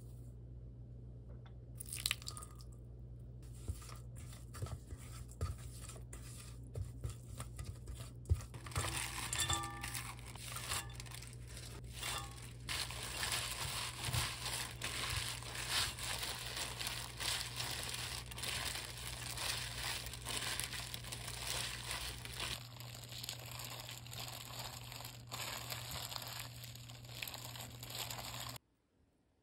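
A disposable plastic-gloved hand tossing fresh chives, carrot and onion with chili seasoning in a stainless steel bowl: dense crinkling and rustling of the glove and leaves, after a few seconds of scattered clicks and taps. A low steady hum runs underneath until about three-quarters of the way through, and everything cuts off suddenly near the end.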